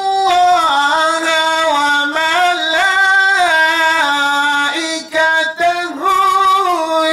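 A man singing an unaccompanied Mawlid devotional chant into a microphone. He holds long notes that step up and down in pitch with ornamented turns, with a few short breaks for breath about five seconds in.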